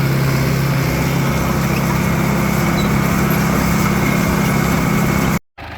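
Farm tractor engine running steadily while pulling a grain drill across the field, a constant low hum that cuts off abruptly near the end.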